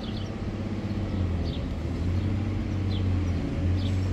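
An engine running steadily at a low, even pitch, with short high bird chirps repeating over it.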